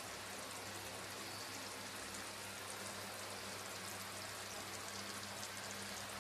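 Chicken masala gravy simmering in the pot, a faint, steady crackle over a low hum.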